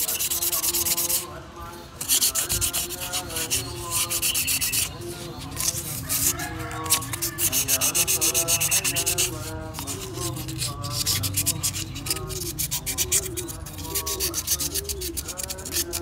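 Fine 1000-grit sandpaper rubbed quickly back and forth over a refrigerator compressor's metal valve plate, a dense scratchy rasping with a short break about a second in. The dirty valve plate is being sanded clean.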